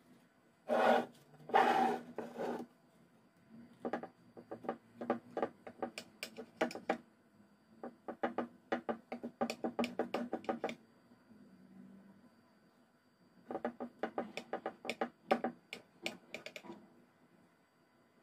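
Knife sawing through a rolled sponge cake on a serving plate: a few louder rasping strokes about a second in, then three runs of quick clicks and scrapes as the blade works through the crust and touches the plate.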